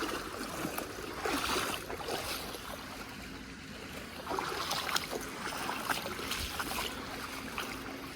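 Small waterfall's water rushing steadily, with scattered short splashes and clicks.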